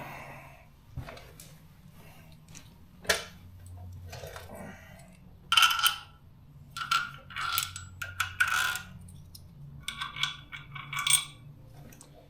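Small loose metal hardware, such as steel nuts and washers, clinking and rattling as it is handled. There is a sharp clink about three seconds in, then several bursts of clatter through the second half.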